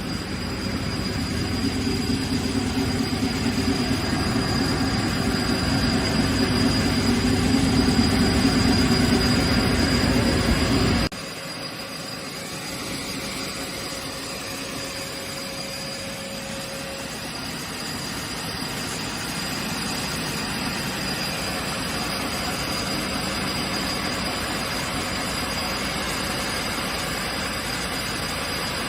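Woodworking machine running with a steady mechanical hum and rush, fairly loud for about the first eleven seconds, then cutting suddenly to a quieter, steady running sound.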